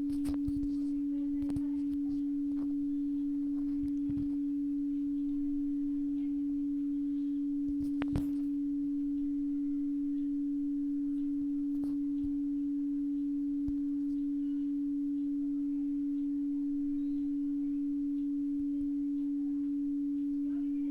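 Steady single low tone, a pure sine of about 290 Hz, played through a phone's speaker by a speaker dust-remover app during its auto-cleaning cycle, meant to vibrate dust out of the speaker. A faint click comes about eight seconds in.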